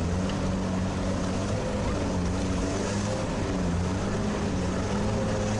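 Sherp all-terrain vehicle's diesel engine running steadily under way, its drone rising and falling slightly in pitch.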